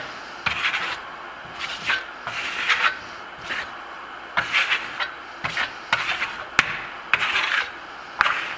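Steel Venetian plaster trowel scraping and rubbing Grasello lime plaster across a board in short, repeated strokes, with a few sharp clicks.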